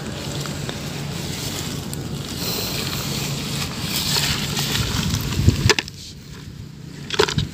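Wind buffeting the microphone, with a low steady hum underneath. A few sharp knocks near the end as the plastic bucket is handled.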